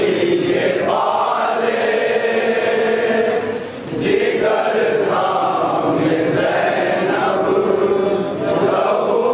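A group of men chanting a nauha, a Shia Muharram mourning lament, in long sung phrases with short breaks for breath about four and eight seconds in.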